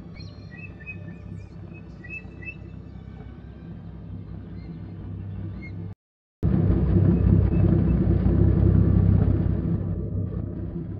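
Birds chirping over a steady low hum in a simulated outdoor scene. After a moment of silence about six seconds in, a much louder jeep engine rumble comes in and eases off near the end.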